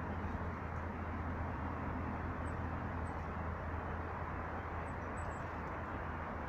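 Steady outdoor background rumble with a low hum, and a few faint, very high, short bird chirps about two and a half seconds in, again at three seconds and around five seconds.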